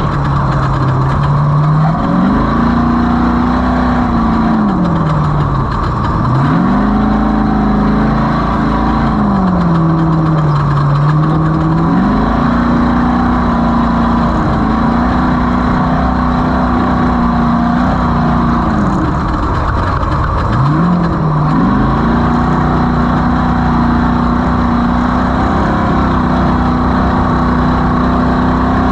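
Off-road race vehicle's engine running hard, its pitch climbing, dropping back and climbing again several times with throttle and shifts, then holding steady for the last third.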